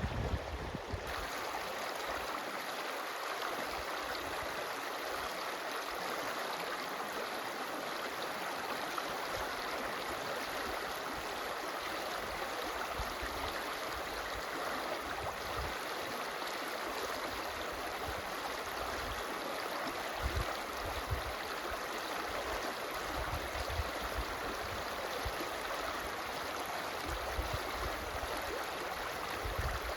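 Running water of a stream, a steady rushing with occasional low rumbles.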